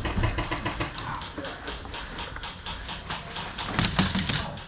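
Airsoft guns firing in a close exchange: a rapid, uneven run of sharp cracks and clicks.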